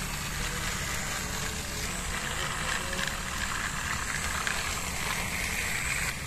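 Battery-powered toy trains running on plastic track, their small electric motors and wheels making a steady whir.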